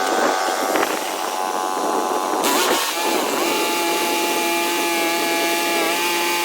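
A small sawmill's engine running steadily, with a brief rushing burst about two and a half seconds in, after which its note settles and holds steady.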